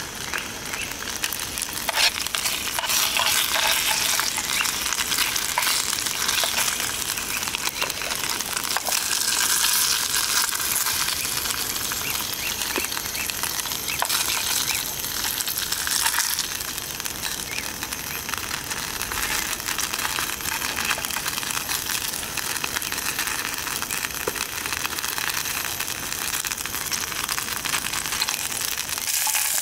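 Slices of meat sizzling as they fry in oil in a small metal camping pot, a steady hiss with occasional light clinks of a spoon against the pot as more slices go in.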